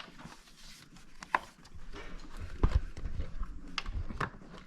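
Irregular sharp clicks and knocks from plastic retaining clips being worked loose and parts handled while opening a housing under the bonnet.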